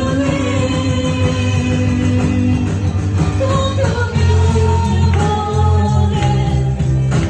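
Live worship music: singers at microphones holding long sung notes over a band, with a strong bass line and a steady percussion beat.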